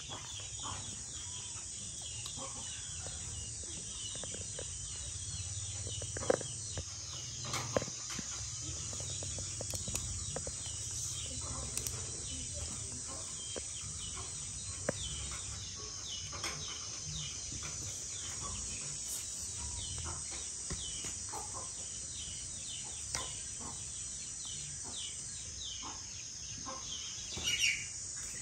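Outdoor rural ambience: birds chirping and calling again and again over a steady high-pitched drone and a low rumble, with a few sharp clicks and taps, and a louder call near the end.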